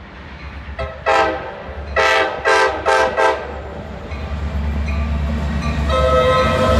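Air horn of an approaching Metra commuter train's diesel locomotive sounding four short blasts, with a faint brief toot just before them. Then the locomotive's rumble grows steadily louder as it nears, and a held tone joins near the end.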